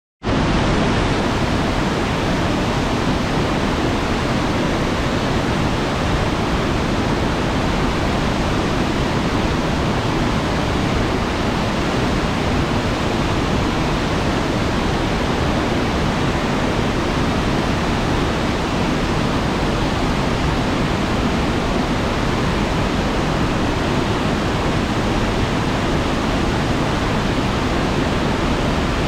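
Waterfall pouring, a loud steady rush of falling water that fills every pitch from a deep rumble up to a hiss.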